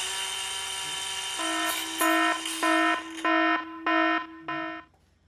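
Electronic alarm-like tone, held steady for over a second and then beeping about six times in an even rhythm before it stops.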